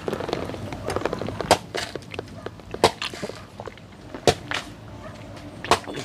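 A machete striking a green jelly coconut, about five sharp knocks spaced roughly a second and a half apart.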